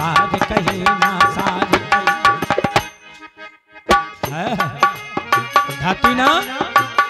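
Instrumental break in Bundeli khyal folk music: fast, steady hand-drum strokes over held tones. The music drops out about three seconds in and comes back a second later on a sharp stroke.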